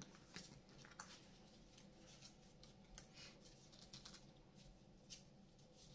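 Faint, scattered clicks and light rustles of trading cards being handled and laid on a playmat against near silence, with one sharper click about three seconds in.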